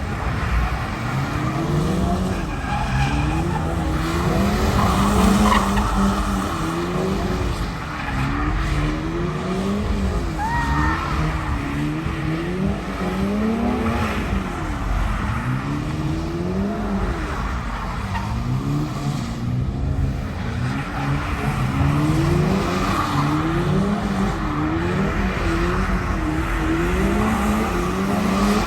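Toyota GR86's naturally aspirated flat-four engine revving up and down over and over, its pitch climbing and dropping every couple of seconds as the car is driven hard, over steady tyre and road noise. Two short high squeaks come about ten seconds in.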